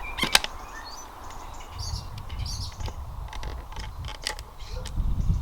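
Small birds chirping now and then, over sharp clicks and crackles of a plastic bottle being handled as a wooden spoon handle is pushed through a hole in its side. The loudest click comes about a third of a second in.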